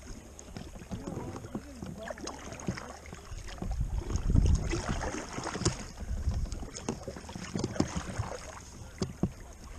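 Kayak paddling on calm river water: paddle blades dipping and splashing irregularly, with water sloshing against the hull and scattered small knocks.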